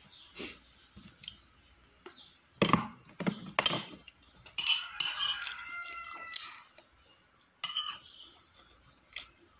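Spoon and plate clinks and knocks of someone eating a meal, scattered sharp taps. About five seconds in, a rooster crows once in the background, a drawn-out call lasting about a second and a half.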